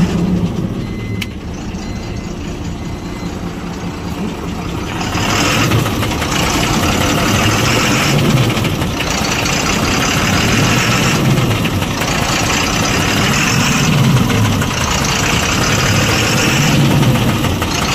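Ashok Leyland BS6 dumper truck's diesel engine running with an internal engine noise, which the mechanic rules out as injector noise and judges serious enough that the engine must be opened up. The engine gets louder about five seconds in, then rises and falls every two to three seconds.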